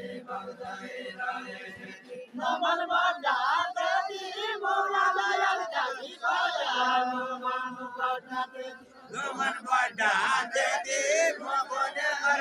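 A group singing a Far-western Nepali deuda song in a chanting chorus without instruments, with long held notes, over crowd noise.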